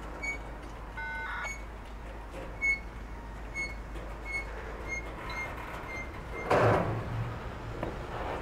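Freight train of container flatcars rolling past at speed, its wheels running steadily on the rails. Short high metallic pings repeat a little under a second apart, with a brief squeal about a second in and a loud clank about six and a half seconds in.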